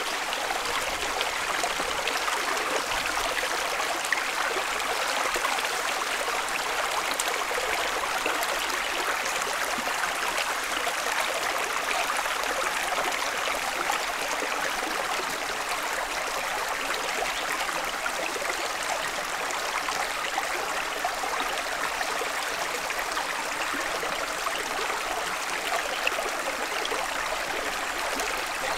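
Shallow rocky stream running over stones: a steady rushing and trickling of water.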